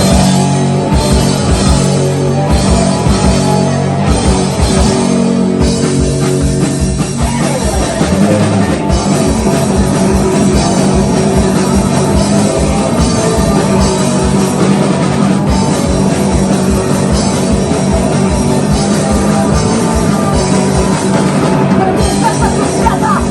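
Live rock band playing loud, with a steady, driving drum-kit beat under the rest of the band.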